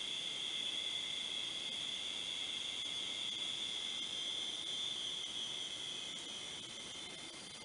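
Commodore 64 tape-loading sound from a Tapuino SD-card tape emulator: the data signal played aloud as a steady, high-pitched, hiss-like tone while a program loads. It gets a little fainter near the end.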